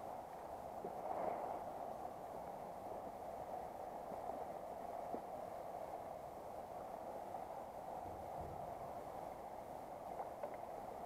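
Shallow river running over stones, a steady babbling rush with a few faint ticks.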